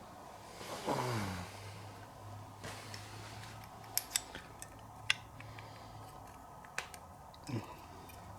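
A few sharp metal clicks and light taps as small brake caliper parts (pad, pin) are handled and fitted, the clearest clicks in the middle of the stretch. A short falling whine-like sound comes about a second in and again near the end, over a faint steady hum.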